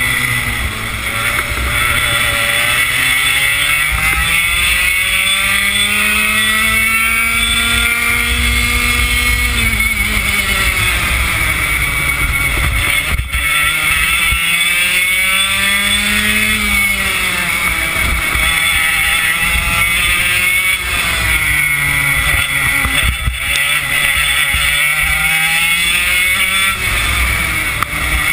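Racing kart engine at full throttle, heard from on board: its pitch climbs steadily along each straight and drops sharply on braking for the corners, several times over.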